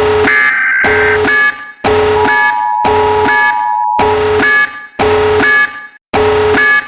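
Emergency-alert tornado-warning alarm: a loud, buzzy multi-tone signal sounding in repeated bursts of about a second or more, with short breaks between. For about two seconds in the middle, a steady two-note attention tone sounds alongside it.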